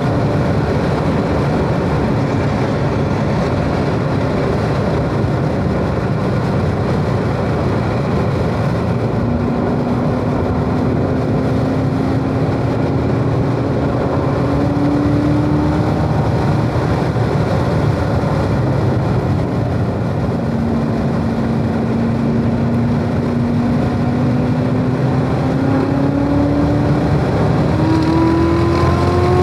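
Corvette Z06's supercharged V8 heard from inside the cabin, pulling hard in third gear at track speed over heavy road and tyre noise. Its pitch climbs gradually, drops briefly, then rises more steeply near the end as the car accelerates onto a straight.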